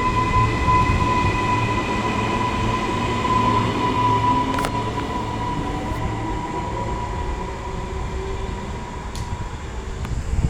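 Queensland Rail NGR electric train pulling out of the platform. It runs with a steady rumble and a steady high-pitched whine, easing off somewhat near the end.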